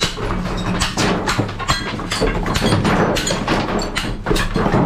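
Scrap metal clanking and knocking as it is pulled and banged around in a dumpster, with rapid irregular hits and brief metallic ringing, over a steady low hum.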